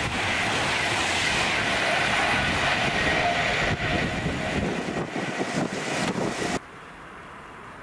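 Avanti West Coast Class 390 Pendolino electric train running at speed: a loud, steady rush of wheel and air noise with a faint whine. It cuts off abruptly about six and a half seconds in, leaving a much quieter background.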